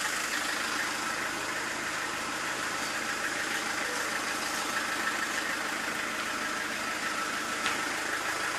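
A steady mechanical hum that does not change in pitch or level.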